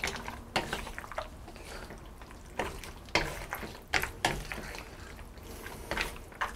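Wooden spatula stirring chicken, cashews and vegetables through a thick sauce in a wok: irregular soft knocks and wet scrapes against the pan, several times over a few seconds.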